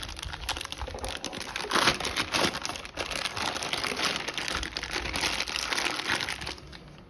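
Packaging crinkling and rustling as it is handled and pulled off a new security camera during unboxing, dying down near the end.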